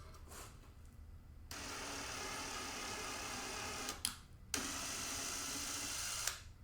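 Electric drill running in two steady bursts of about two and a half and two seconds, with a short click between them, boring holes partway into the mounting board for the motherboard.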